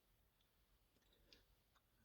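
Near silence, with one faint click about a second in.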